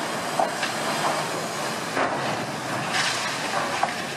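Steel hull of a large passenger ferry grinding and scraping up a beach as it is run aground at speed: a steady rumbling roar with several sharp cracks and bangs through it.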